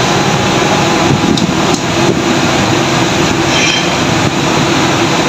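A puri deep-frying in a kadai of hot oil: a loud, steady sizzle with fine crackling, over the kitchen's constant background roar.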